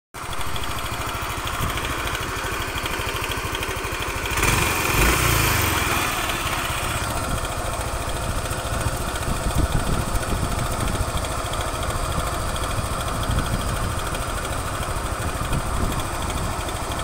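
Motorcycle engine idling steadily with a rhythmic knocking rattle, "kladak, kladak", briefly louder about four to six seconds in.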